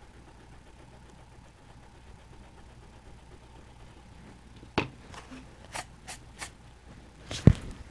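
Faint steady room hum while a pencil line is erased, then a few light taps and clicks and one louder thump near the end as drawing tools are handled, put down and picked up on the drawing pad and table.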